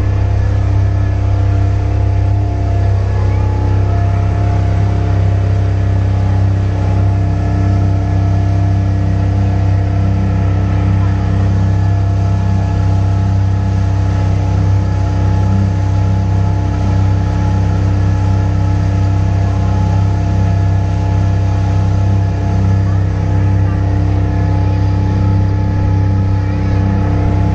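An engine running steadily: a constant low hum with steady higher tones above it, unchanging in speed and level.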